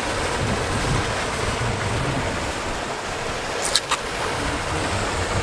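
Strong wind and sea waves making a steady rushing noise, with two sharp clicks a little past halfway through.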